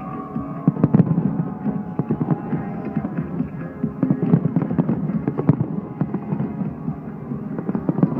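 Fireworks display going off in rapid succession: a dense run of bangs and crackles, with music playing alongside.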